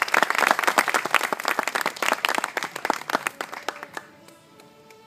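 Audience applauding: a dense patter of many hand claps that thins out and stops about four seconds in.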